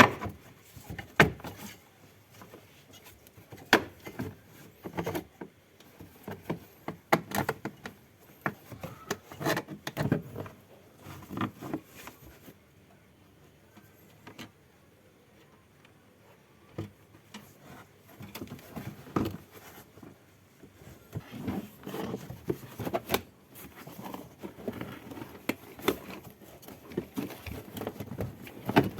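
Irregular clicks, knocks and clatter of hand tools and car parts being handled, with a quieter stretch about halfway.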